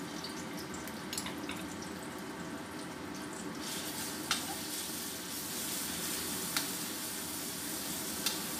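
Ground spice paste sizzling in hot oil in a stainless steel wok while a metal ladle stirs it, with a few sharp clicks of the ladle against the wok. The sizzle grows brighter about halfway through as the paste is spread in the pan, at the stage of frying the paste until fragrant.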